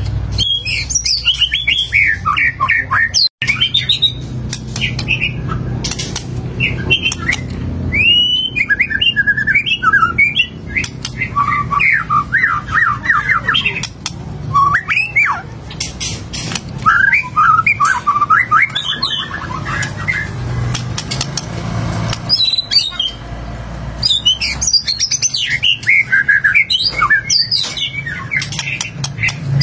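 White-rumped shama singing almost without pause: a rapid stream of varied whistled phrases, chatters and trills. The song breaks off for an instant about three seconds in.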